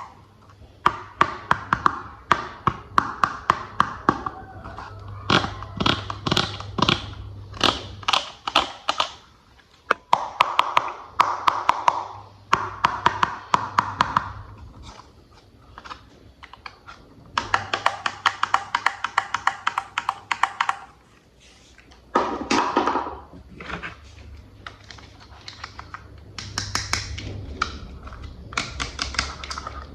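Plastic toy train parts being handled, tapped and clicked together, in quick runs of sharp clicks, with bursts of plastic packaging rustling in between.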